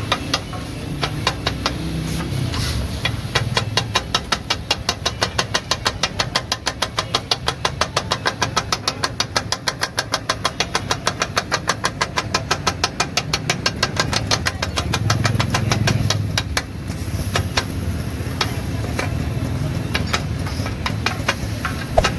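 Metal spatulas chopping egg keema on a flat iron griddle (tawa): rapid, rhythmic metal clanking, several strikes a second, thinning out after about sixteen seconds.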